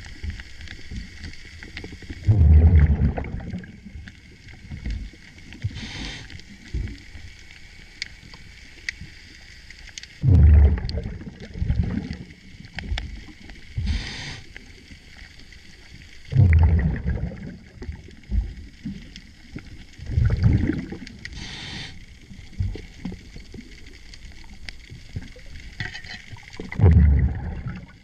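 Scuba diver breathing through a regulator underwater: five loud rumbling bursts of exhaled bubbles, several seconds apart, with a shorter hiss of inhalation between some of them.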